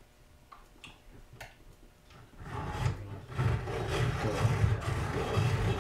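Hand-cranked pencil sharpener grinding a pencil. A few light clicks come first, then about two seconds in a rasping grind starts that pulses about twice a second as the crank turns.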